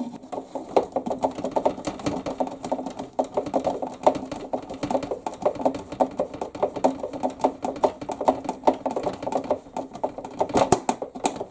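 Screws being driven into the RC boat's plastic hull with a screwdriver: a rapid, continuous run of clicks and creaks over a steady low hum.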